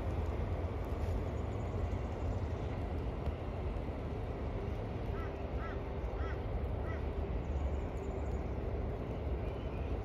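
Steady low outdoor rumble, with a small bird chirping four short times about five to seven seconds in.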